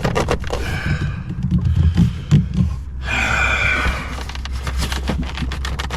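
Plastic centre-console trim creaking and clicking as it is tugged on while it stays stuck, with a strained breath about three seconds in.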